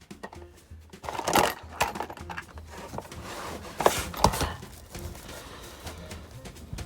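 Metal parts and hand tools being handled while a clutch slave cylinder is offered up and fitted to an engine: irregular clinks, knocks and scrapes, the loudest knocks about a second and a half in and again around four seconds in.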